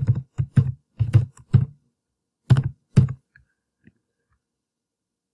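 Computer keyboard being typed on: a quick run of keystrokes for the first second and a half or so, then two more single strokes about a second later.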